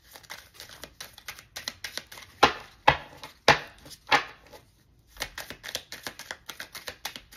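A deck of reading cards being shuffled by hand: a run of rapid card flicks, with four louder sharp slaps of the cards between about two and a half and four seconds in, a short pause, then more flicking.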